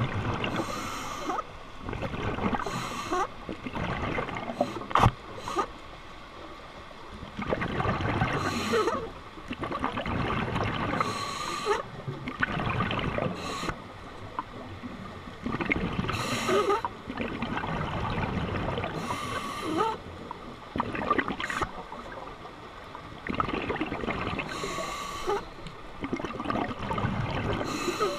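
Scuba diver's breathing through a regulator underwater: a sharp hiss on each inhale and a burbling rush of exhaled bubbles, repeating every few seconds.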